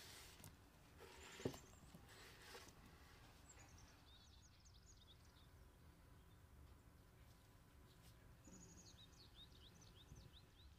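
Near-silent room tone with faint birds chirping in two short runs of quick high chirps. In the first few seconds there are a few soft knocks as chopped tomato slides off a wooden board into a glass bowl, the strongest about a second and a half in.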